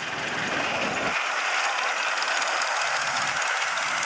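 Miniature ride-on live-steam locomotive running past close by: a steady hissing rattle of the working engine and its wheels on the rails, getting louder in the first second as it nears.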